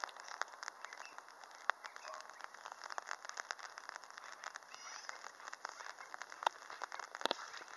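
Magpies chattering: a faint, irregular run of harsh clicking notes, with a short rising chirp from another bird about five seconds in.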